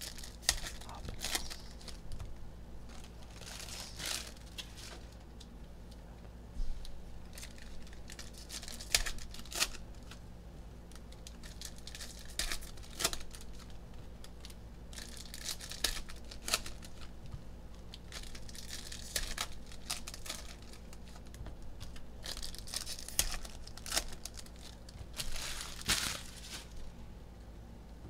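Foil trading-card packs (2020 Panini Mosaic football hobby packs) torn open one after another, the wrappers crinkling, between sharp clicks and flicks of cardboard cards being handled and stacked.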